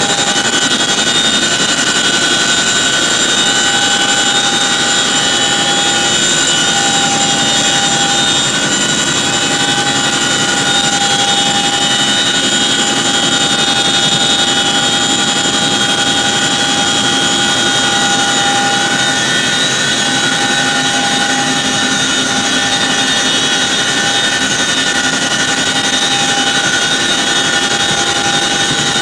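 MH-47 Chinook tandem-rotor helicopter heard from inside its cabin with the rear ramp open: the twin turboshaft engines and rotors running in a steady, loud din, with several high steady whines over it.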